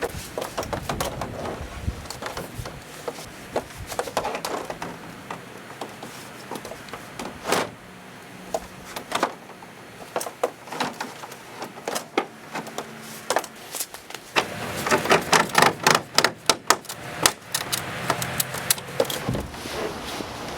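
Irregular clicks, knocks and clatter of plastic shed panels and parts being handled and fitted together, with a dense run of quick knocks a little past the middle.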